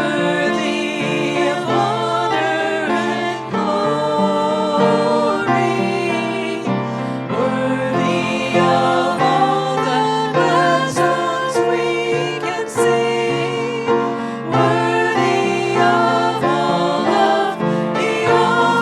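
Congregational hymn singing with instrumental accompaniment: a group of voices singing sustained, changing notes over the instruments.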